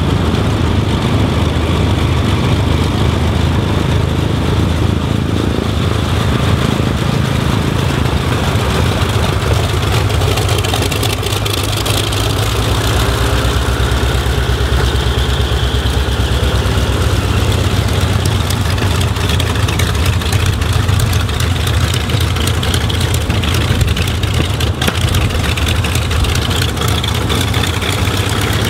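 The Vought F4U-5N Corsair's Pratt & Whitney R-2800 eighteen-cylinder radial engine running steadily at low taxi power, loud and unbroken, with the propeller turning.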